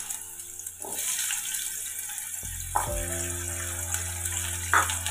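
Diced potatoes sizzling as they fry in hot mustard oil in a kadai, a steady bubbling hiss. Soft background music with held notes plays under it, louder from about halfway through.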